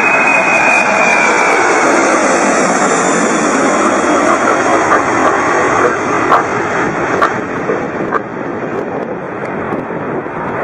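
Jet airliner engines making a loud, steady rush with a high whine that eases off in the first couple of seconds. The sound grows a little quieter near the end.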